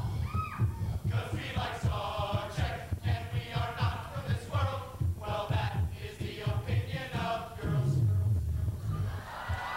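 A group of men singing together on stage over a steady, rhythmic low thumping beat.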